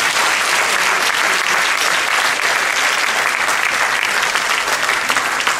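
An audience applauding steadily: many people clapping at once.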